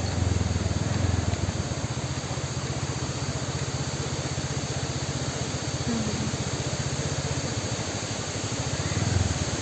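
Steady rushing of a large waterfall, with a low rumble underneath.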